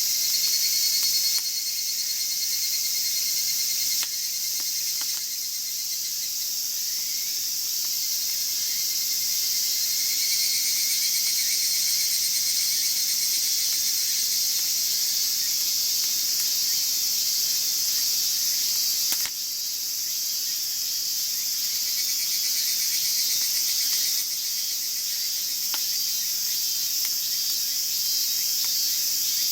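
Steady chorus of crickets and other insects trilling, high-pitched and continuous, with a few faint pops from the wood fire.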